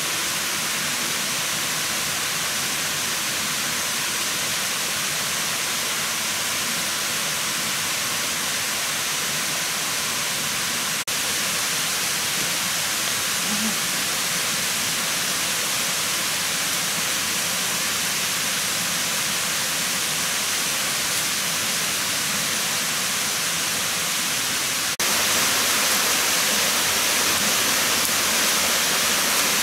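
Steady rushing of a rocky forest stream, an even hiss with no pitch to it, which steps a little louder twice at abrupt cuts.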